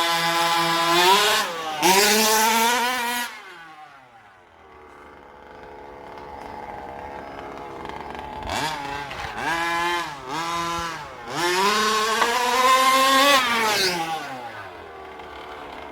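1/5-scale petrol RC car's small two-stroke engine revving hard in several rising and falling runs, fading away for a few seconds, then coming back with short quick blips and a long high rev about twelve seconds in that falls away in pitch as it passes.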